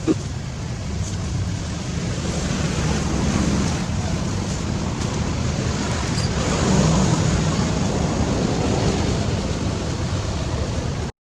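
Steady rushing outdoor background noise with no distinct events, heaviest in the low range; a single brief click comes right at the start, and the sound cuts out for a moment just before the end.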